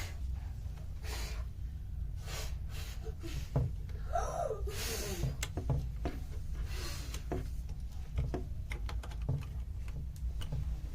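Steady low wind rumble on the microphone, with scattered light clicks of handling as a desktop processor is fitted into its motherboard socket, a few short breaths, and a brief voiced sound about four seconds in.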